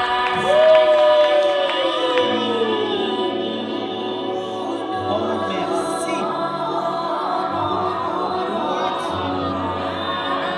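Music with held chords and sung, choir-like voices; about half a second in, one sung note slides slowly downward, and a deep bass line comes in about two seconds in.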